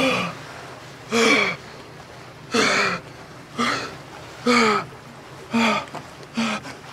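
A man gasping in fright, short voiced gasps about once a second, each dropping in pitch at its end.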